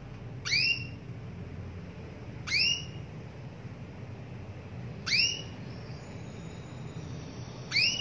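Female domestic canary calling: a short whistled call that sweeps upward and levels off, repeated four times about every two and a half seconds. It is the female's call to a male, used to draw males into song.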